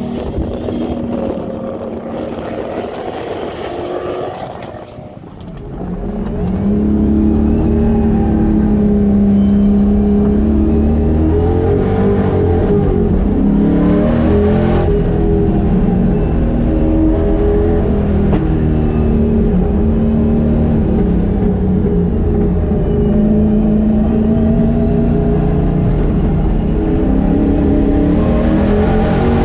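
Turbocharged 6.0-litre LQ4 V8 in a 1972 Camaro. For the first few seconds it is heard more quietly as the car drives past on track. From about six seconds in it is heard loudly from inside the car, its pitch climbing and dropping again and again as the engine revs up and eases off around the road course.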